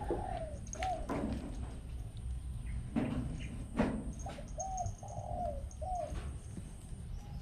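A baby monkey's short, arched coo calls in two runs, one near the start and several more about four to six seconds in, with a few sharp knocks in between.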